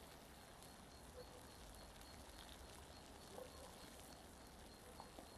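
Near silence: faint outdoor ambience with a steady low hiss and a few faint, brief chirps.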